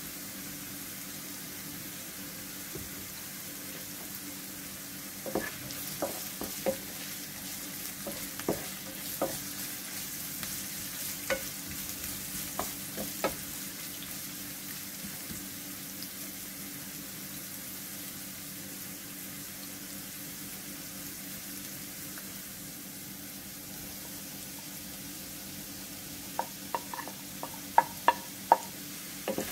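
Carrot and onion strips sizzling steadily in oil in a nonstick frying pan. A wooden spatula clicks and knocks against the pan while stirring, with a quick run of louder clacks near the end as more vegetables go in.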